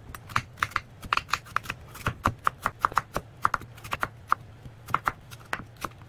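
Kitchen knife slicing through a peeled apple on a wooden cutting board: quick, crisp cuts with the blade tapping the board, about four a second at an uneven pace.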